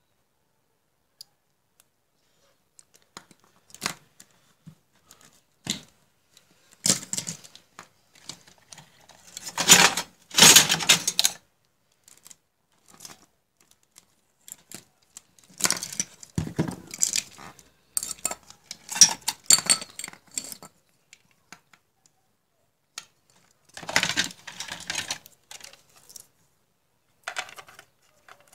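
Handling noise: clicks, rustles and clatter in irregular bursts as wires and a small circuit board with its relay are moved about on a tabletop, loudest about ten seconds in.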